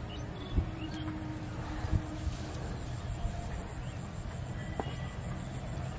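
Steady low outdoor rumble with a faint steady hum, broken by two dull thumps about half a second and two seconds in.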